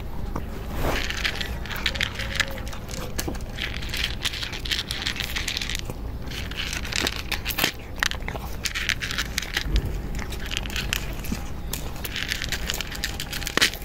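A domestic cat crunching dry kibble, in bouts of rapid crisp crunches with short pauses between them.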